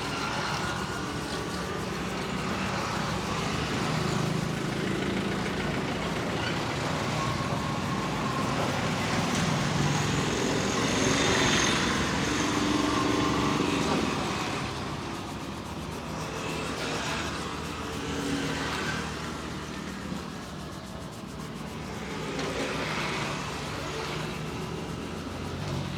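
Passing road traffic, a steady hum of vehicles that swells and fades as they go by.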